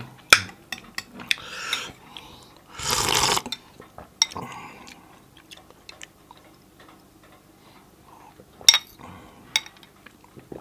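Metal spoon clinking against a glass bowl of bone soup, with a loud slurp of the broth about three seconds in and a couple more sharp clinks near the end.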